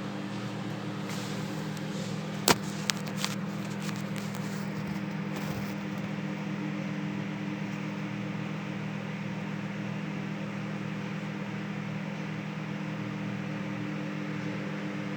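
Repaired Sharp microwave oven running, a steady low hum from its transformer and fan while it heats, showing it now starts and works. Three sharp clicks come about two and a half to three and a half seconds in.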